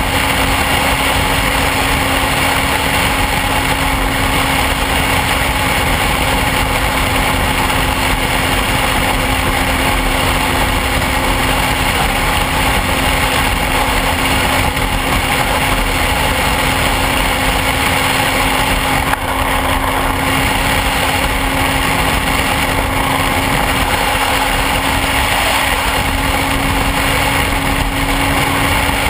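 BMW motorcycle's engine running at a steady cruise, a constant drone with no revving, under heavy wind and road rush on the microphone.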